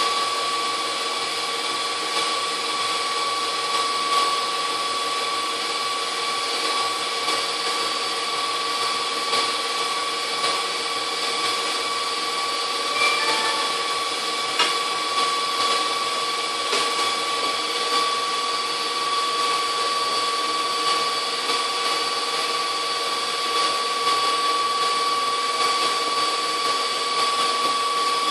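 KitchenAid 6-quart bowl-lift stand mixer running steadily at low speed, whipping egg whites: an even motor hum with a steady whine. A couple of light clicks come near the middle.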